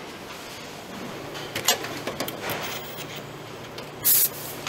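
Car-plant production-line machinery: a steady low hum with a burst of sharp clicks and clatter about a second and a half in, and a short, loud hiss near the end.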